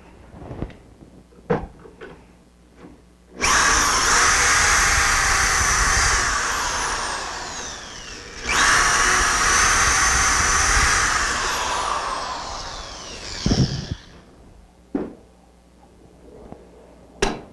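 Power drill boring pocket holes through a pocket-hole jig with a stepped bit: two runs of a few seconds each, the second starting just after the first dies away, each ending with the motor's whine falling as the drill coasts down. A few short clicks and knocks come before and after the runs.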